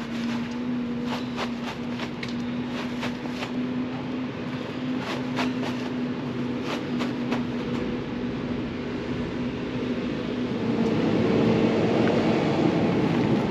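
A machine running with a steady hum and scattered clicks and rattles. About ten seconds in it gets louder and rougher, its tone shifting higher.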